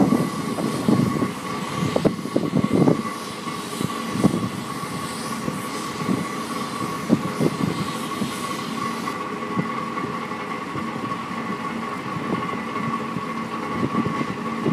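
Truck engine running with a steady high-pitched whine and scattered knocks and clanks, loudest in the first few seconds and again near the end.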